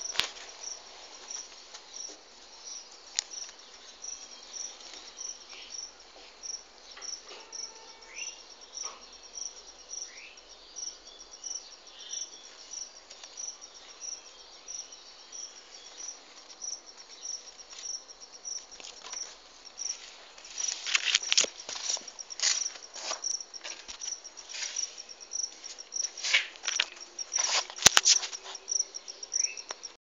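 Juvenile sunbird calling: a steady series of short, thin, high-pitched notes, about two a second, breaking into a flurry of louder, sharper calls about two-thirds of the way through.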